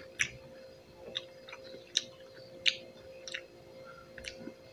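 Close-up chewing of fresh pineapple: a string of short, crisp mouth clicks and crunches, about seven of them, roughly one every half second to a second.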